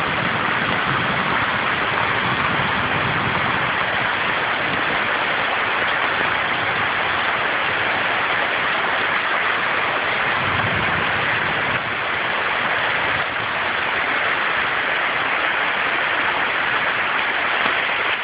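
Heavy rain pouring down steadily in a torrential downpour, a dense, even hiss that does not let up.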